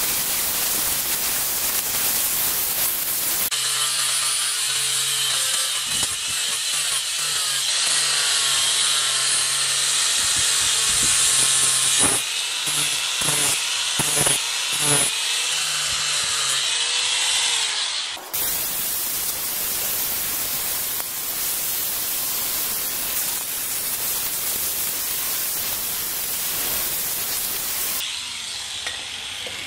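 Angle grinder grinding a steel axe head clamped in a bench vise: a steady hiss with a motor whine under it. The grinding breaks off briefly several times about halfway through, and the sound changes abruptly twice.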